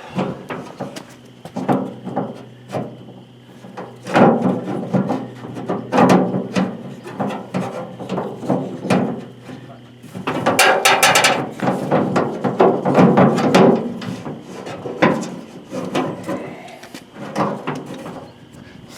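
Metal tailgate latch rods and clips clicking, rattling and knocking as they are worked by hand inside a pickup tailgate, with a dense run of rapid clicks about ten seconds in.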